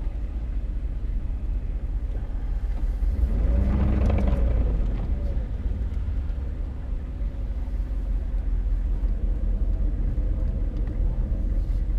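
Vehicle engine and road rumble heard from inside the cab while driving slowly, swelling louder for a moment about four seconds in.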